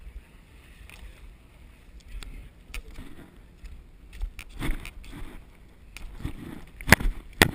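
Footsteps in wet mud with wind rumbling on a body-worn camera's microphone, marked by irregular knocks; two sharp knocks near the end are the loudest sounds.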